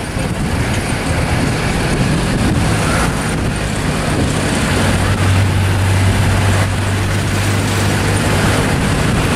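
Road noise from riding in the open bed of a moving pickup truck: a steady rush of wind and tyres with a low engine drone that grows stronger for a few seconds past the middle.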